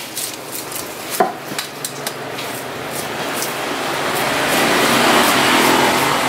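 Knife scraping scales off a large fish on a wooden chopping block: a quick run of sharp scratching clicks, with one louder metallic clink about a second in. From about three seconds in, a steady rushing noise swells up and becomes the loudest sound.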